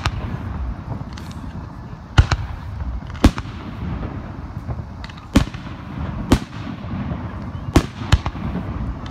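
Aerial firework shells bursting close by: six sharp bangs at irregular intervals, with a continuous low rumble between them.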